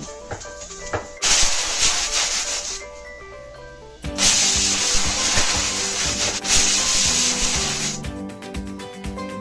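A rough rubbing, scraping noise in two long spells, the second starting about four seconds in, over background music.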